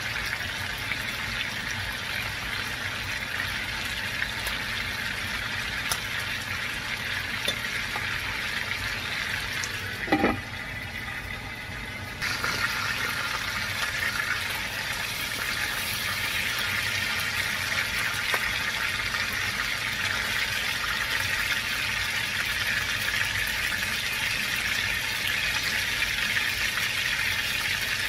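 Cubes of pork shoulder sizzling in hot oil in a nonstick wok as they are browned, turned with metal tongs. About ten seconds in there is a short knock, the sizzle drops for a couple of seconds, then comes back a little louder.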